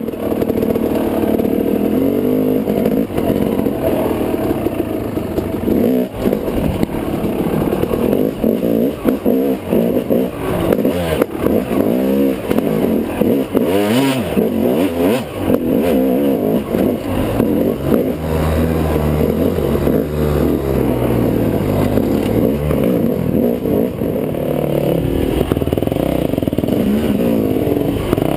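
Dirt bike engine heard from on the bike, revving up and down continually as it picks its way over rough rock at low speed.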